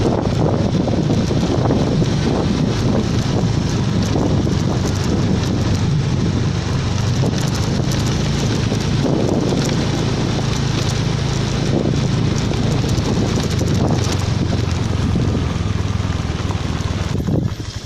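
A vehicle engine running at a steady pace while driving along a dirt road, with wind rushing over the microphone. The sound drops off briefly near the end.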